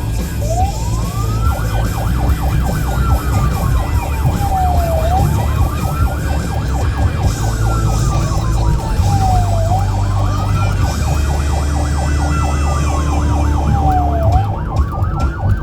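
Police car siren in wail mode: a slow climb in pitch over about two seconds, then a slower fall, repeating about three times, with a rapidly pulsing second tone over it and a steady low vehicle rumble underneath.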